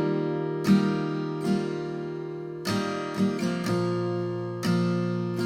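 Acoustic guitar strumming slow chords, each left to ring, as the instrumental introduction of a worship song.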